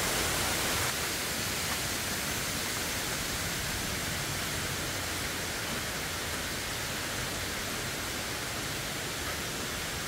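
Steady hiss of rain falling on the forest, dropping a little in level about a second in.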